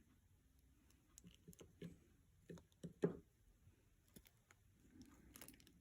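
Near silence with a few faint light taps and clicks, clustered between about one and three seconds in, and a soft brief rustle near the end.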